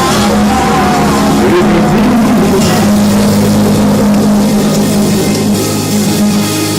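Live church praise-band music: held chords sustained over a steady bass line, with no singing.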